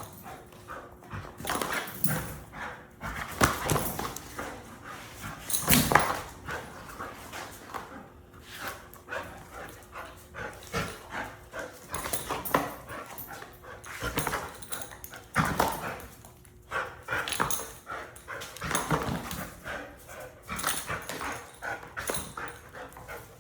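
American Bully dog whining and giving occasional barks, among irregular knocks and scuffles as it keeps working hard.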